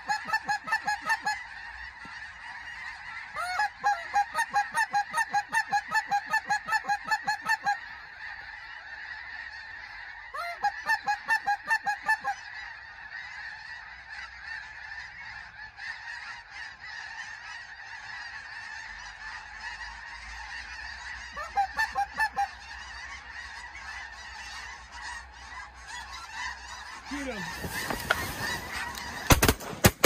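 A large flock of snow geese calling, a steady din of honking with loud bursts of rapid, evenly spaced calls now and then. Near the end the noise swells and shotgun blasts begin in quick succession.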